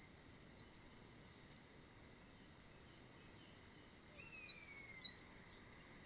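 A bird calling in short, high notes that each drop sharply in pitch: two about half a second in, then three louder ones near the end. A fainter, lower whistle slides down beneath the later group.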